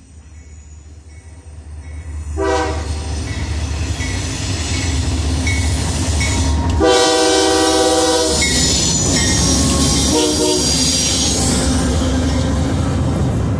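CSX diesel-hauled double-stack freight train approaching and passing close by, its rumble growing louder. The locomotive's air horn sounds three times: a short blast about two and a half seconds in, a longer one near the middle, and a short one about ten seconds in. After that the cars rumble past with a high wheel hiss and squeal.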